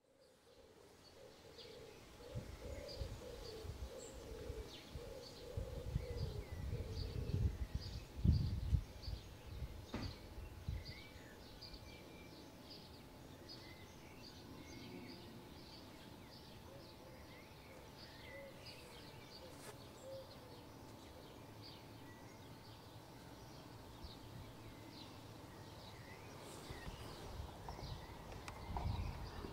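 Garden ambience: small birds chirping and singing in short, repeated phrases throughout, with bursts of low rumble in the first ten seconds or so and again near the end.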